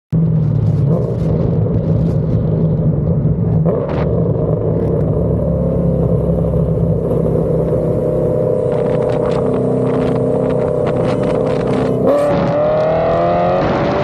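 V8 muscle car engines running in a rolling street race, held at a steady cruise. About twelve seconds in, the throttle opens wide and the engine pitch climbs as the cars accelerate hard.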